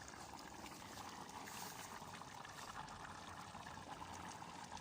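Goulash simmering in a cauldron, a faint steady bubbling.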